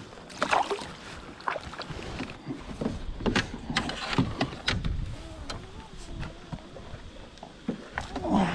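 Small splash about half a second in, as a bass is let go back into the water by hand. Then a kayak paddle dips and splashes in irregular strokes, with light knocks.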